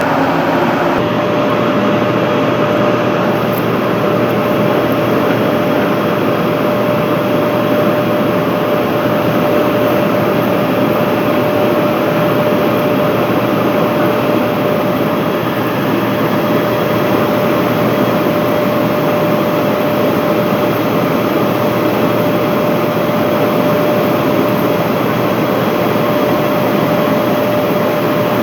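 Slitting machine running steadily, with a continuous mechanical noise and a steady mid-pitched tone over it.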